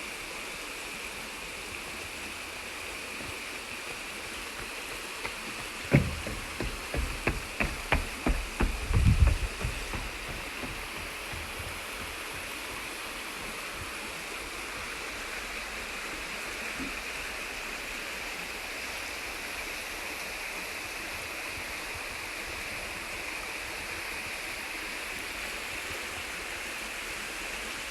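Steady rush of running water, like a stream. About six seconds in comes a quick run of a dozen or so sharp knocks and low thumps lasting about four seconds.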